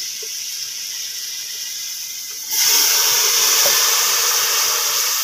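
Onions frying in hot ghee in a metal cooking pot, a steady sizzle. About two and a half seconds in, water is poured into the hot ghee and the pot breaks into a much louder sizzling hiss of steam that carries on.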